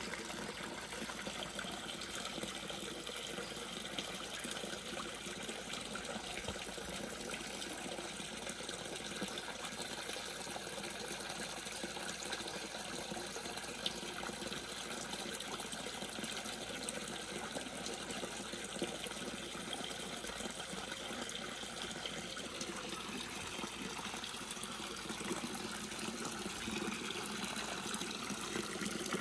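Garden pond fountain bubbling up and a stream of water pouring from a barrel filter's outlet pipe into the pond: steady splashing and trickling.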